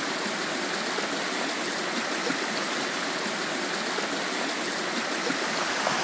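Waterfall cascading over rocks close by: a steady, even rush of water.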